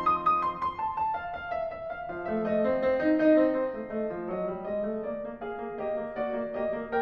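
Background piano music: a gentle melody of single notes over held lower chords.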